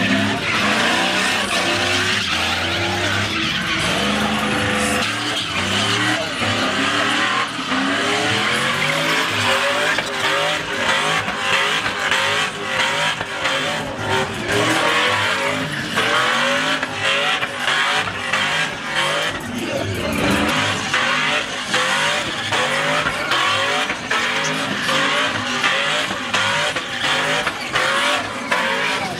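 Chevrolet Silverado pickup doing burnout donuts: the engine revs up and down over and over while the spinning rear tyres screech and hiss against the pavement.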